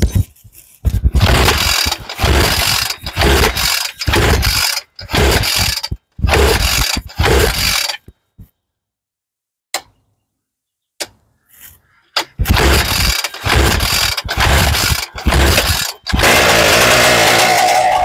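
Homemade twin-cylinder 100cc two-stroke engine, built from two pocket bike engines, on its first start: it fires in short bursts of about a second and dies again and again, then catches and keeps running near the end.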